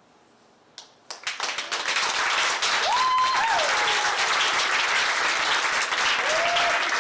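Audience applause at the end of a stage scene: after a brief quiet it starts about a second in, builds quickly into steady clapping and holds. Two drawn-out high calls rise above the clapping, one about three seconds in and a shorter one near the end.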